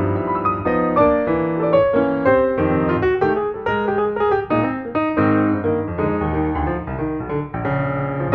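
Background piano music: a steady, unbroken run of notes and chords.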